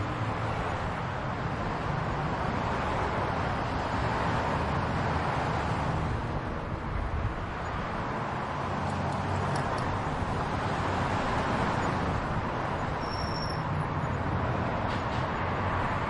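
Steady road traffic: a continuous wash of engine hum and tyre noise from passing vehicles.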